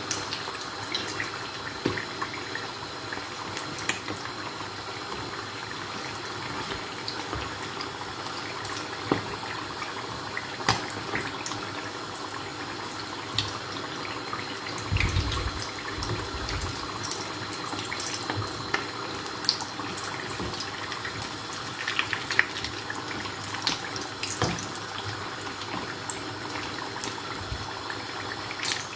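Samosas deep-frying in hot oil in a frying pan: a steady sizzle with frequent sharp crackles and pops. A brief low rumble comes about halfway through.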